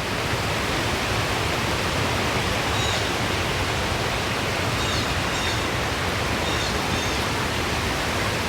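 Steady rush of wind through trees mixed with falling rain, with no strong gusts.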